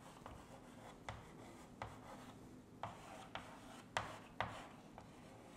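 Chalk writing on a chalkboard: a series of faint, short taps and scratches as letters are written.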